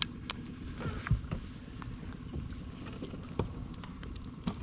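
Low rumbling noise of wind on the microphone and a small fishing boat on the river, with scattered light knocks and clicks from handling gear aboard.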